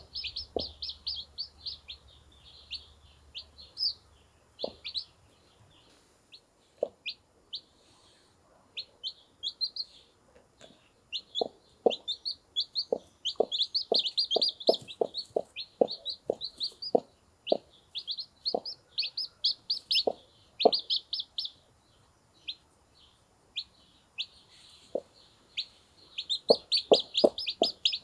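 Day-old chicks peeping constantly in high, short notes while a broody Brahma hen clucks low to them. Her clucks are sparse at first, then come as a steady run of about two a second through the middle.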